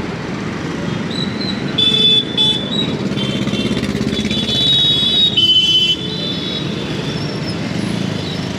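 Street traffic noise with vehicle horns honking: a couple of short honks about two seconds in, then longer overlapping honks from about three to six seconds in.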